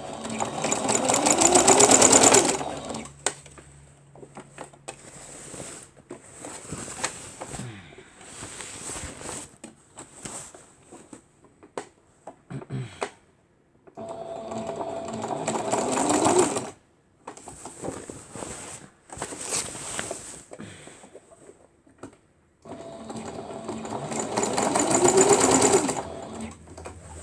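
Electric sewing machine stitching in three runs, its motor whine rising as it speeds up, with rapid needle strokes. Between the runs come quieter clicks and rustling as the work is handled and turned.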